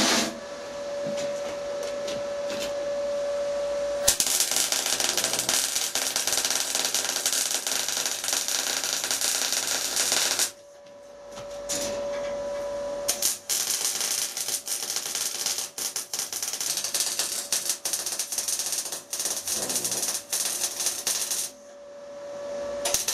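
Arc welding on steel: a dense, steady crackle of the welding arc in two runs, the first starting about four seconds in and stopping a little before halfway, the second picking up a few seconds later and running until near the end. A steady hum fills the pauses between the welds.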